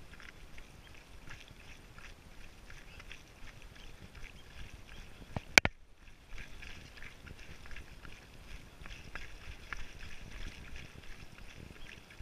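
Footsteps crunching on a rocky mountain path, with irregular clicks of trekking poles striking stone. A single sharp, loud click sounds a little past halfway.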